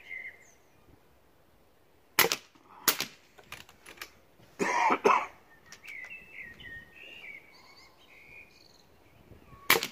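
Pre-charged pneumatic air rifles firing: sharp cracks about two and three seconds in, a louder cluster of cracks around five seconds in, and another crack near the end.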